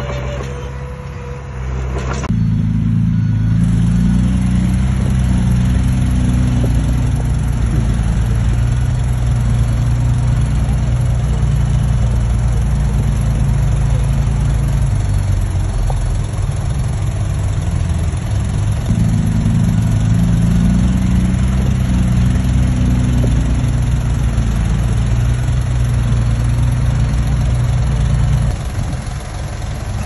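Heavy diesel engine running steadily. It cuts in abruptly about two seconds in, shifts up and down in pitch a few times, and eases off near the end.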